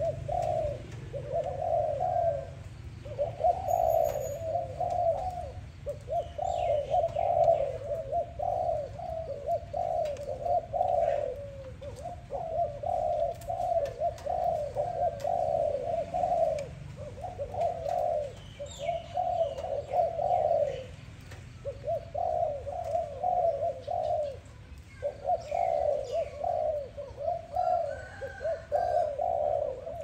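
Spotted dove cooing: runs of low, rounded coos with short pauses between phrases. Faint chirps of small birds sound higher up now and then.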